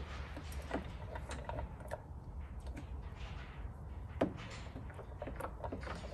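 Small hand squeegee pushed across wet paint protection film on a car's rear gate panel, working the soapy slip solution out from under it: a scatter of short rubbing strokes with one sharper tick about four seconds in, over a low steady hum.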